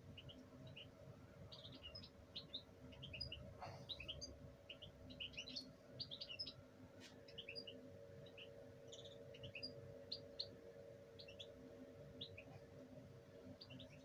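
Small birds chirping faintly: many short, scattered chirps, over a low steady hum.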